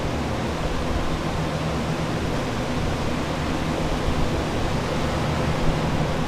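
Water-damage drying equipment (air movers) running steadily: a loud, even rush of blown air with a low hum underneath.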